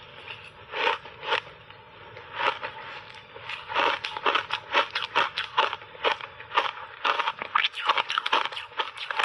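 Shaved ice being bitten and chewed right at the microphone, crunching: a few separate crunches at first, then rapid, nearly continuous crunching from about four seconds in.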